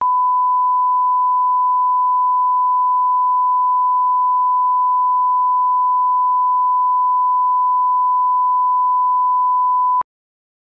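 Steady single-pitch line-up test tone, the reference tone that goes with colour bars, cutting off abruptly about ten seconds in.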